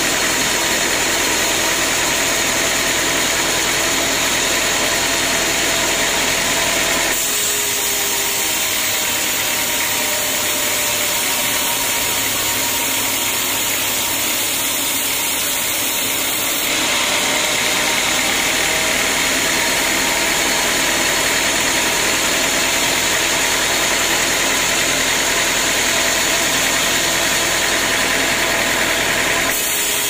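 Band sawmill running steadily, its band blade sawing lengthwise through a large teak log. The machine noise changes abruptly twice.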